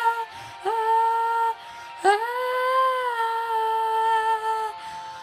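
A young girl singing held open vowels without words: a brief note, a second short note about a second in, then a long note from about two seconds in that rises slightly and settles before stopping near the end.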